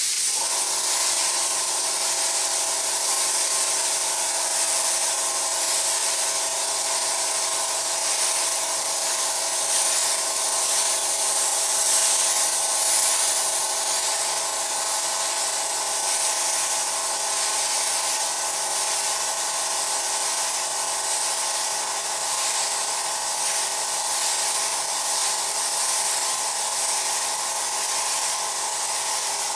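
Airbrush spraying paint with a steady hiss of air, over the steady hum of the air compressor that feeds it.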